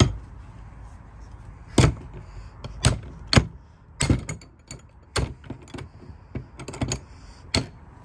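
Steel crowbar hooked through a padlock's shackle being jerked and levered against the hasp of a wooden shed door: a string of sharp metal clanks and knocks at uneven intervals, with smaller rattles between them.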